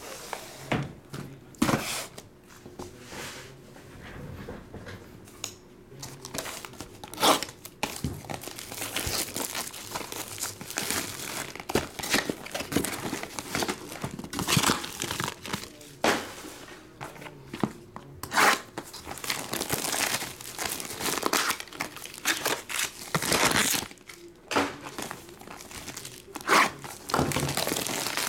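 Trading card boxes being unwrapped and torn open by hand: cardboard and plastic wrapping crinkling and ripping in irregular bursts, sparse at first and busy from about a third of the way in.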